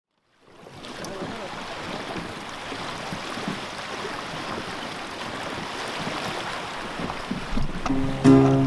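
Steady outdoor wash of wind and surf-like noise, fading in just after the start. Plucked guitar music comes in near the end.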